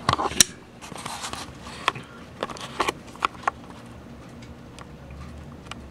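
Handling noise as the camera is moved and set in position: a handful of sharp clicks and knocks over the first three and a half seconds with a brief rustle, then only quiet room background.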